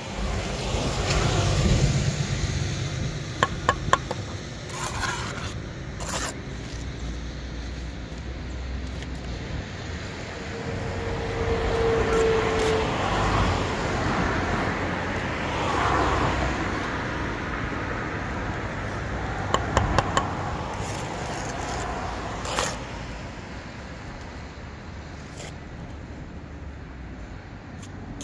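Brick trowel scraping mortar and tapping bricks down into their bed, with a few sharp metallic taps, over road traffic passing.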